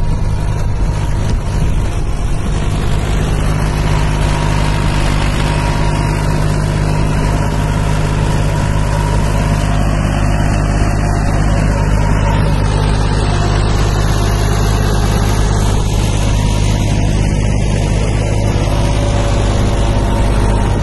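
Massey Ferguson 246 DI 4WD tractor's diesel engine running steadily, pulling a tine cultivator through the soil.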